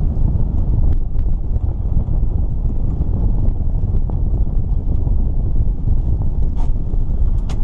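Wind buffeting the microphone on an open boat: a steady low rumble, with a couple of sharp clicks near the end.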